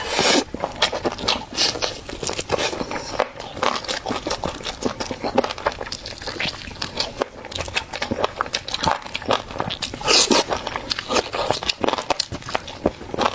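Close-up eating sounds: food being chewed and crunched, with many small crackling clicks and now and then a louder crunchy bite.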